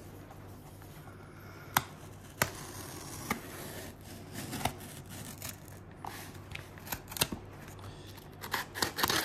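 Hobby knife blade cutting the packing tape and cardboard of a parcel: scattered sharp clicks and scrapes, then a quicker run of scraping and crackling near the end.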